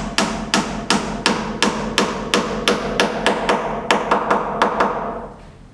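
Hammer blows in a steady run of about three strikes a second, each with a short ringing after it, quickening for the last few blows and then stopping.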